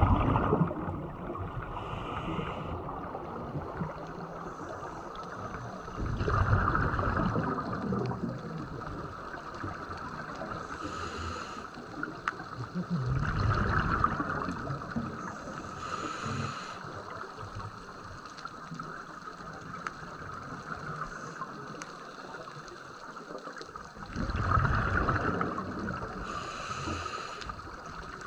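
A scuba diver's regulator breathing underwater in a slow cycle. Every ten seconds or so there is a rumbling, gurgling surge of exhaled bubbles, with fainter hissing inhalations in between.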